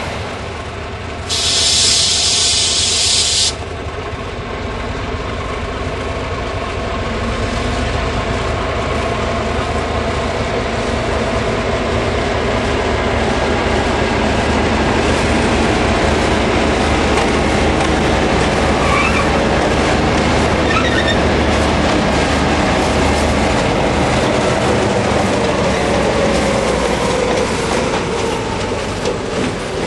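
Two Tasrail diesel-electric locomotives, ZR2100 leading DQ2006, running light round a curve and passing close by. Their engines build up as they approach and the engine note falls as they go past near the end, with a little wheel squeal on the curve. A loud hiss lasting about two seconds comes near the start.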